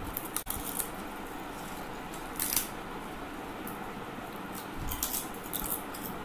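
Crisp papad being bitten and chewed: short dry crunches, a few in the first second, the loudest about two and a half seconds in, and a run of them around five seconds in, over a steady background hiss.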